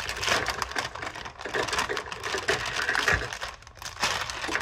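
Kitchen items being handled while baking: a busy run of small clicks and rustles with no single loud knock.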